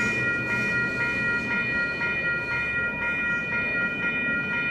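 A railroad grade crossing's WCH Type 4 electronic bells ringing at about two strokes a second, each stroke a steady high ring. The crossing is still active with its gates down; the bells ring until the gates rise.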